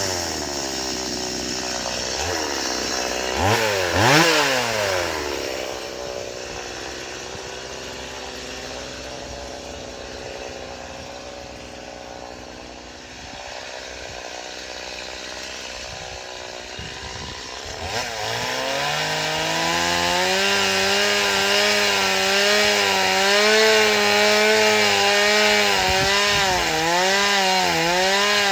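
Stihl MS 180 two-stroke chainsaw idling, blipped up and back down once about four seconds in. Near the two-thirds mark it revs up to high speed and stays there with a wavering pitch, cutting wood.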